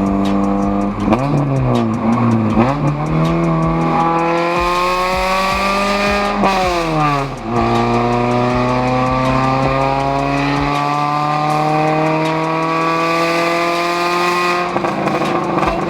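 Acura Integra's four-cylinder engine revving. It gives two quick blips in the first few seconds, then two long, slow climbs in revs, each ending in a sharp drop; the second drop, near the end, falls back to a steady idle.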